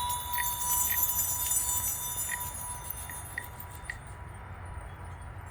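A metal chime struck once, ringing with several high, steady tones that fade away over about four seconds, with a few faint light ticks.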